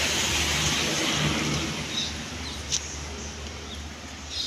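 A motor vehicle going past, its noise fading away over the first couple of seconds, with a few light clicks afterwards.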